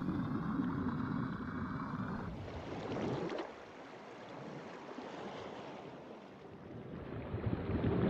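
Water rushing and splashing around a two-seat winged submersible running along the surface, with a steady hum for the first two seconds or so. About three and a half seconds in, the low rumble drops out and the sound turns to a softer hiss of churning water and bubbles as the craft goes under.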